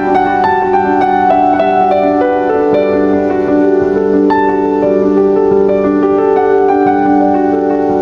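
Instrumental background music: a melody of short ringing notes over steady held chords.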